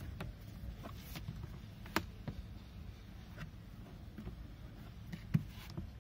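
Scattered plastic clicks and knocks from a Hyundai Xcent's glove box as its side stops are pressed in and the box is let down, the sharpest about two seconds in and again near the end. A low steady rumble underlies them.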